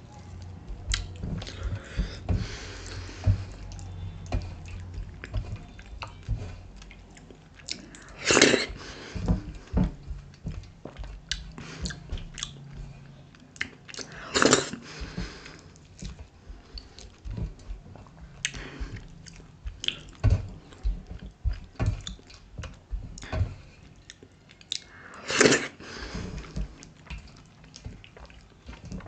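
Close-miked wet chewing and mouth sounds of a person eating dhido with sisnu nettle soup by hand, with three louder slurps spread through as soup-soaked handfuls go into the mouth.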